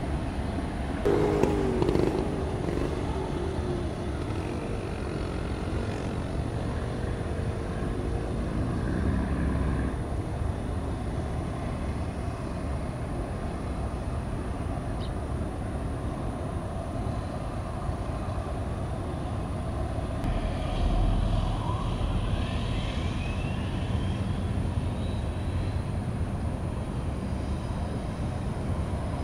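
Steady low engine rumble carrying across the water from passing patrol ships, with a louder jumble of sound about a second in and a single rising whistle-like glide a little past twenty seconds in.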